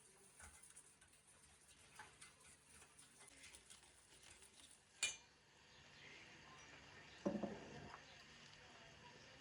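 Quiet kitchen handling sounds of dishes and utensils: faint scattered taps, a sharp clink about five seconds in, then a brief clatter about two seconds later.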